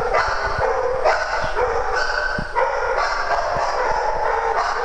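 Several dogs barking and yipping over one another at play, a continuous din of overlapping barks with no pause.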